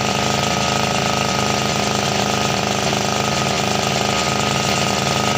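Electric grinder running steadily while grinding a grass-cutter blade to sharpen it, a continuous grinding noise with a steady whine.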